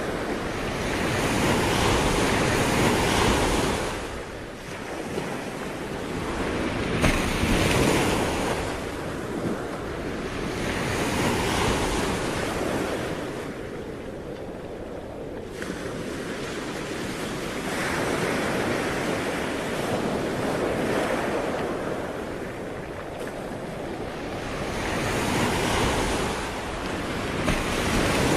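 Ocean waves breaking and washing on the shore in slow surges every few seconds, with wind on the microphone.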